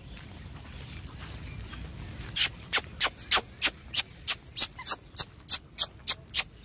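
Brisk footsteps on a sandy dirt path, a regular beat of about three sharp steps a second that starts a little after two seconds in; before that only a low steady rumble.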